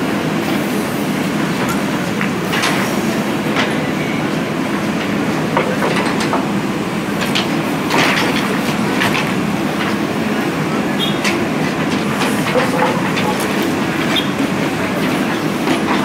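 JCB 3DX backhoe loader's diesel engine running steadily under load as the backhoe arm digs, with irregular clanks and scrapes of the bucket against stones and rubble.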